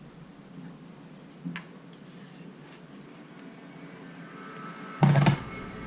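Quiet kitchen handling with a few faint taps and rustles as garlic is added to the sauce, then a short loud sound about five seconds in.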